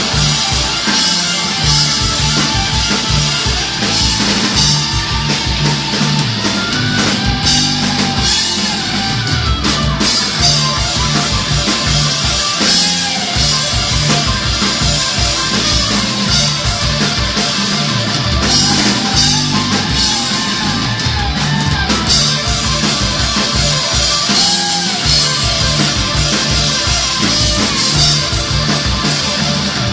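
Live rock band playing an instrumental passage: drum kit and electric guitar, with a lead line that bends in pitch over a steady beat.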